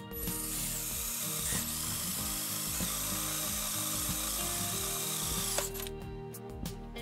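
DeWalt 20V cordless drill running steadily as it bores through a sheet-metal dash panel, stopping suddenly about five and a half seconds in. Background music plays underneath.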